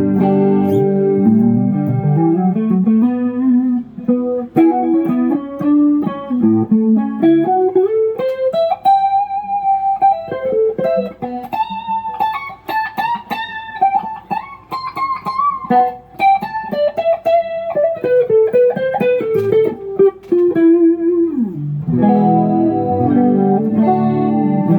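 Kiesel Crescent electric guitar with Kiesel Polarity active pickups, played through an amp. Chords ring at the start, then a single-note melody slides up and back down, and chords return near the end.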